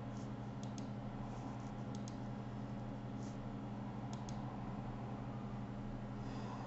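A few soft computer mouse clicks, some in quick pairs, over a steady low electrical hum.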